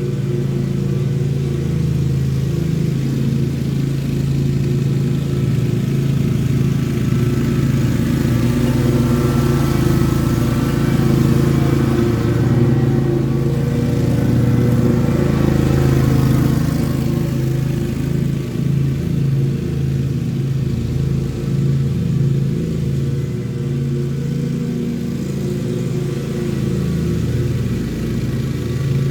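Lawn mower engine running steadily while mowing grass, a little louder and fuller in the middle stretch.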